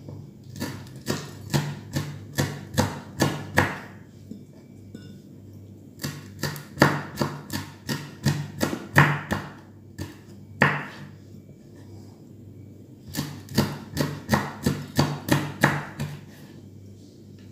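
Kitchen knife slicing red chilies on a wooden cutting board: runs of sharp taps, about three a second, as the blade strikes the board, broken by short pauses.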